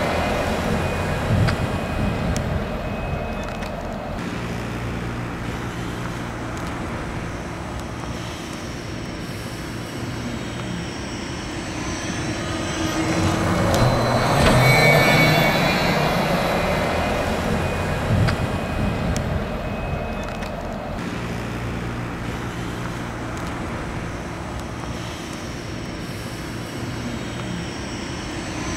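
VDL city buses driving past: steady motor hum and tyre noise that swells to its loudest as a bus passes close about halfway through, then builds again as another bus approaches near the end.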